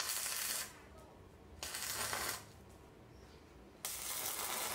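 Stick (arc) welder tack-welding steel gears together: three short bursts of crackling, hissing arc, each under a second long and starting and stopping abruptly. The quick tacks only hold the gears in place for a trial fit.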